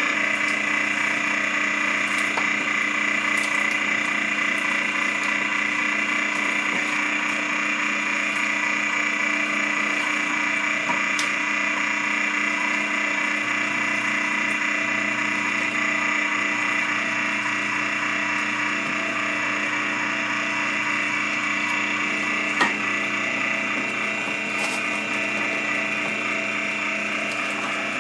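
Heavy-duty 1.5 horsepower electric meat grinder running steadily with a motor hum while it grinds cooked meat scraps. One sharp tick sounds late on.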